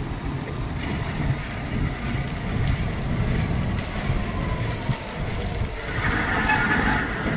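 Road traffic noise with a steady low rumble. A brighter hiss joins in near the end.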